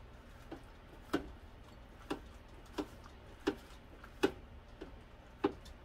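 A spatula clicking against a small stainless steel insert pan while easing meatloaf in from the pan's sides: about eight sharp, uneven clicks, roughly one every half-second to second.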